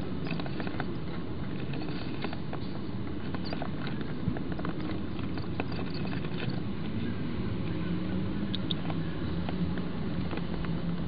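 Sped-up nest-box microphone audio: scattered clicks and scratches as common kestrel chicks and the adult shift about on the nest-box floor, over a steady low rumble of background traffic.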